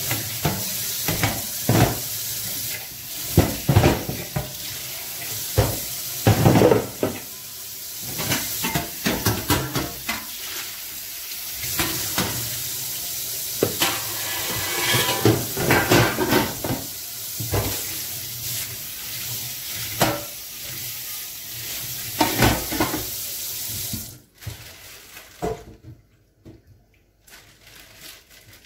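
Kitchen tap running into a sink while things are handled and washed under it, with irregular knocks and clatter of items against the sink. The water is shut off about 24 seconds in, leaving a few light knocks.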